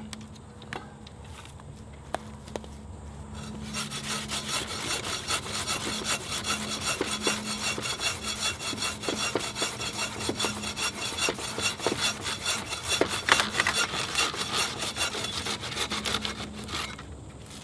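Compact camp hand saw cutting through a dead branch with quick back-and-forth strokes, starting a few seconds in and stopping just before the end. Before the sawing there are only a few light knocks.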